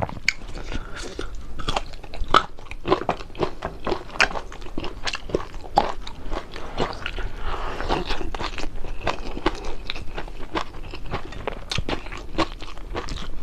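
A person chewing and biting into crispy fried fish close to the microphone, with a continuous run of sharp, irregular crunches.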